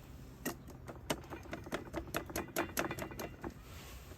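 A quick, irregular run of light taps and clicks, several a second, as something is tapped to shake it out.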